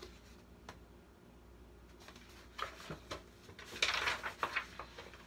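A few soft handling taps, then a brief rustle of paper about four seconds in as a picture book's page is turned.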